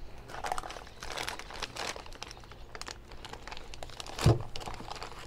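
Clear plastic bag crinkling and cardboard box flaps rustling as a boxed part is pulled out and unwrapped by hand, with one dull thump about four seconds in.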